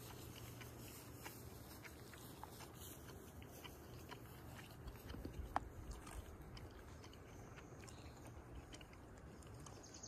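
Faint, irregular crunching and ticking of footsteps through dry meadow grass, with a few heavier steps about halfway through.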